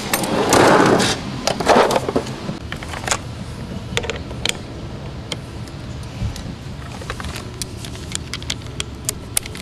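A metal tool chest drawer sliding open and then shut, two brief rushes in the first two seconds. After that come scattered short clicks and taps as a bolt and socket are handled at the truck's seat-belt anchor.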